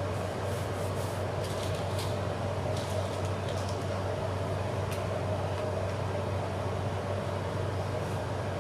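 Steady low mechanical hum from a running room appliance, with a few faint paper rustles and light taps in the first half as the card is pressed flat on the table.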